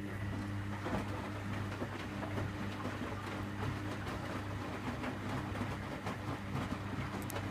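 Samsung WF6700 front-loading washing machine starting its softener rinse: a steady electrical hum with water rushing through the machine.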